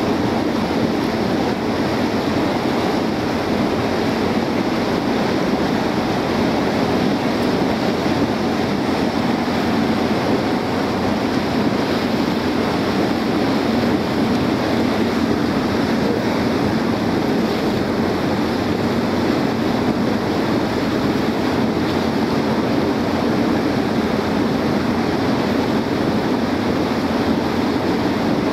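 Small motorboat under way: a steady rush of engine and water noise, with wind on the microphone.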